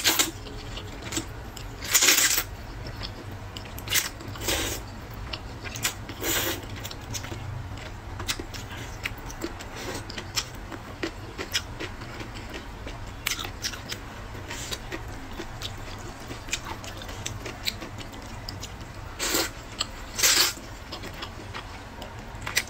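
Close-miked eating of spicy rice noodles: loud slurps of noodles about two, four and six seconds in and twice near the end, with wet chewing and smacking clicks in between. A low steady hum sits underneath.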